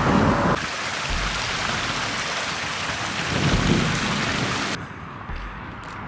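Rain-swollen creek running fast, a steady, even rush of water. It cuts off sharply near the end, leaving a quieter background of wind.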